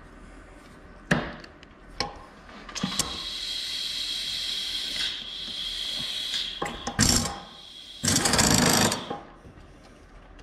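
Milling machine work: sharp clicks as a spot drill is fitted and tightened in the drill chuck, then a few seconds of steady mechanical running with a high whine, a couple of knocks, and a loud rough noise near the end.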